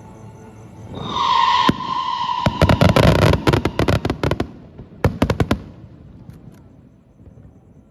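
Aerial fireworks: a loud whistle about a second in, then a rapid run of bangs and crackles from the bursting shells, with a second short cluster of bangs a little later.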